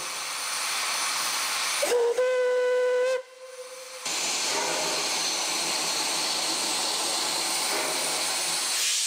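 Narrow-gauge steam tank locomotive giving one short departure blast on its brass steam whistle about two seconds in, a single steady note lasting just over a second, over the hiss of steam. From about four seconds in there is a steady loud hiss of steam venting around the cylinders as the engine makes ready to move off.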